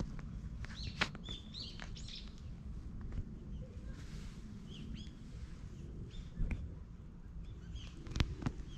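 Small birds chirping in short, repeated high calls, with a couple of sharp knocks and a steady low background rumble.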